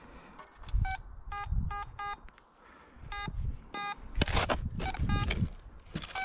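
Quest Pro metal detector giving about nine short beeps as the coil sweeps over a buried target, several beeps carrying a lower tone as well, which the detectorist reads as metal mixed with iron. Rustling in dry undergrowth fills the middle, between the beeps.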